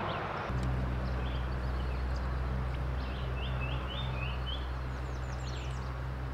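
Birds chirping over a steady low hum and the rush of stream water: a run of about five short chirps midway, then a quick series of high thin notes.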